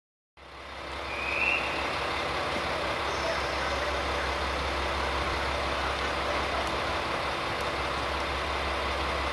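Diesel engines of a KiHa 40/47 series railcar set running steadily, a constant low rumbling drone that fades in during the first second.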